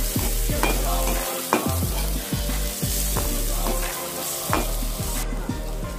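Onion and long beans sizzling in hot oil in a pan while a slotted metal ladle stirs and scrapes them, with many sharp clicks of metal on the pan. The sizzle cuts off near the end.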